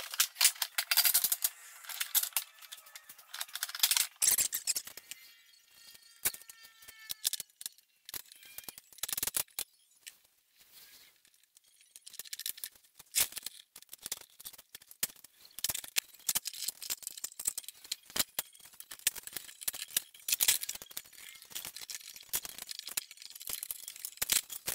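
Irregular clicks, knocks and rattles of wooden cutting-board strips and bar clamps being handled and tightened during a glue-up, thinning out to a few light clicks around the middle.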